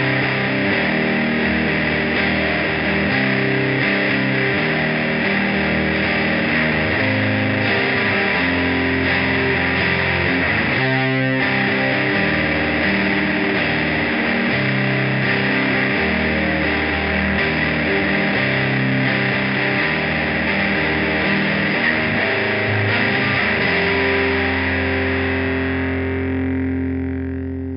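Heavily distorted electric guitar playing a crushing rock riff through overdrive and fuzz pedals, with a brief stop about eleven seconds in. Near the end the last chord is left to ring out and fades.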